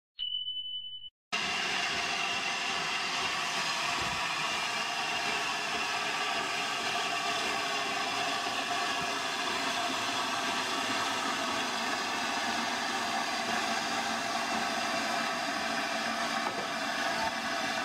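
A short, steady high beep, then a train's continuous, even running noise with a steady engine hum.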